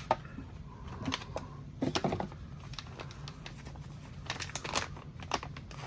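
Packaging crinkling and rustling with scattered light clicks and knocks as a metal soldering jig is unpacked and handled, most of them clustered in the last couple of seconds.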